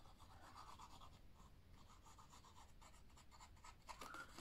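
Faint scratching as the fine nozzle of a liquid glue bottle is drawn over the paper tabs of a card box, a run of small quick scrapes.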